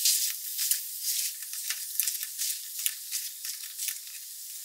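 Meat frying in a hot pan on medium-high heat: a steady sizzle with many small crackles and pops.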